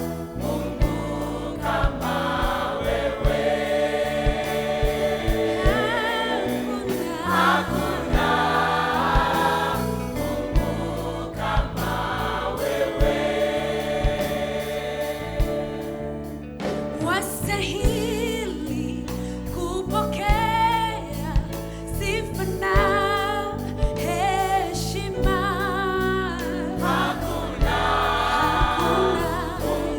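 A choir and band performing a gospel song, with sustained sung lines over bass and a steady drumbeat.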